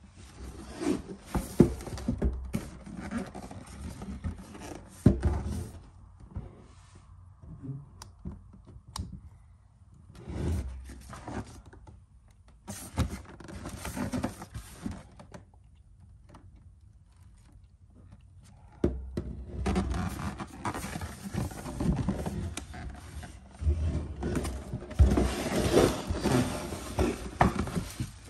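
Cardboard shoe box handled on a wooden bench and its lid worked off: scrapes, taps and knocks in bursts with quiet gaps between. In the last third comes a longer stretch of rustling and crinkling as the black plastic wrap inside is handled.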